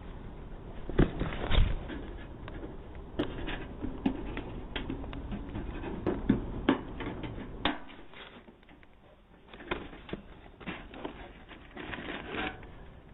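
Irregular clicks, taps and rustling of something being handled, heard through a doorbell camera's microphone with a thin, muffled top end. A few louder knocks come about a second in and again around seven to eight seconds, then it quietens briefly before more scattered clicks.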